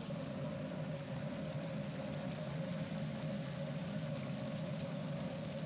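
A steady, engine-like low rumble with a constant hum above it and an even hiss, unchanging throughout.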